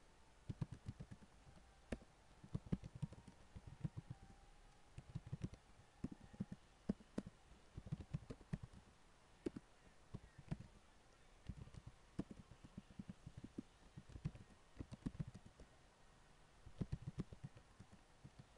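Typing on a computer keyboard: runs of quick keystrokes in short bursts with brief pauses between them.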